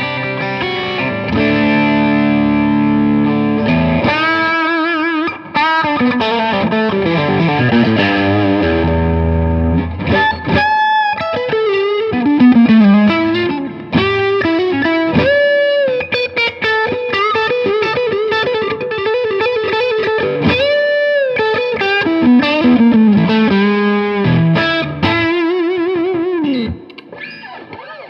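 Electric guitar played through a Moen Overdrive pedal, engaged, giving a distorted tone. Sustained chords ring for the first few seconds, then single-note lead lines follow with several string bends and vibrato. The playing drops away shortly before the end.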